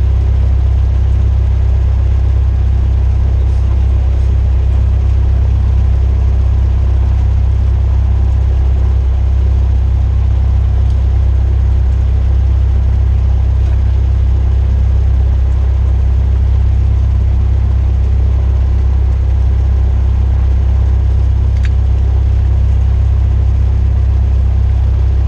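Cessna 172R's four-cylinder Lycoming engine and propeller running at a steady power setting, a loud, unbroken low drone heard inside the cabin.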